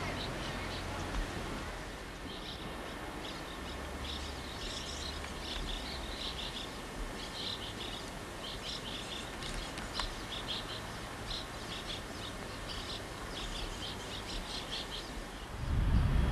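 Small songbirds chirping, many short, separate chirps in quick irregular runs over a faint steady background hum. Near the end a loud low rushing noise comes in.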